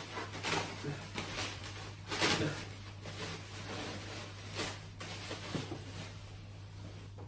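Clear plastic bubble-wrap packaging rustling and crinkling as cardboard doll boxes are handled and pulled out, in irregular bursts over a low steady hum.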